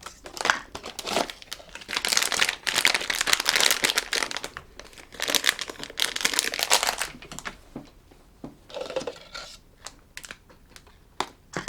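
Plastic blind-bag packaging being torn open and crinkled by hand, in dense rustling bursts through the first half that thin out to scattered crackles later.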